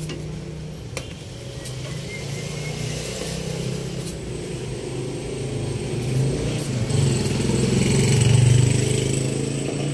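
A steady low mechanical hum in a kitchen, swelling louder about seven seconds in. Near the start there are a couple of sharp clicks from a metal spoon stirring and knocking in a stainless pot of simmering soup.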